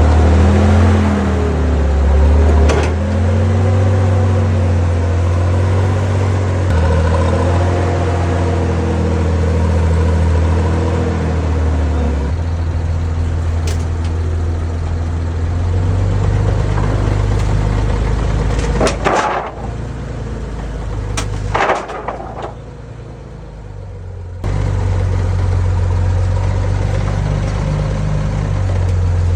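A motor vehicle engine running, its pitch rising and falling as it revs over the first dozen seconds, then steadier. Two loud sharp noises come about two-thirds through, and after a quieter stretch the engine sound returns suddenly.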